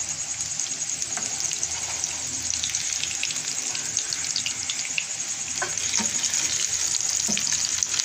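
Breaded chicken shami kabab patties shallow-frying in hot oil: a steady sizzle with crackling spits. It gets louder about six seconds in as the patties are turned over into the oil.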